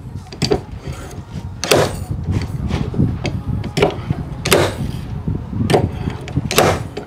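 Slide-hammer dent puller yanking on a glue tab stuck to a car's sill: about seven sharp knocks, roughly one a second, each ringing briefly, as the weight hits its stop to pull the dent out.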